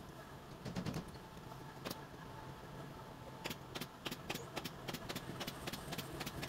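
Large tailor's shears snipping through upholstery fabric in a run of quick, sharp clicks. The clicks are few at first and come thick and fast from about three and a half seconds in, over a steady low hum.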